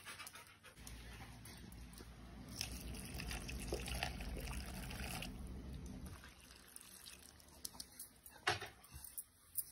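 Milk poured from a mug over dry dog kibble in a bowl: a faint trickle and splash lasting about five seconds. A few light knocks follow near the end.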